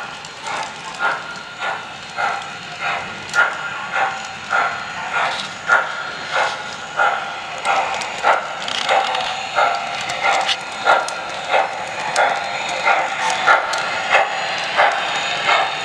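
Model steam locomotive chuffing in an even rhythm, about one and a half chuffs a second, as it runs round the track, with small sharp clicks from the wheels on the rails.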